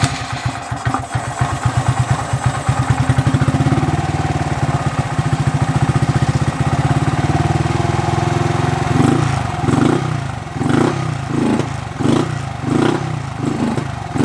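Honda Monkey 125's single-cylinder engine, freshly fitted with a 13:1 high-compression stock-bore piston, running just after a cold start. It idles steadily, then from about nine seconds in it rises and sags in revs about nine times, bogging in the way that is normal for this bike when cold.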